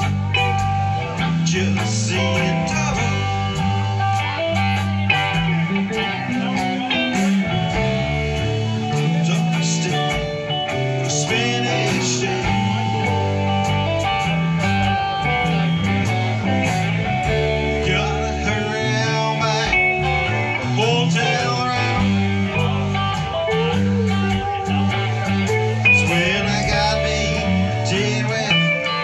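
Live band playing: electric guitars over a steady bass line and drums.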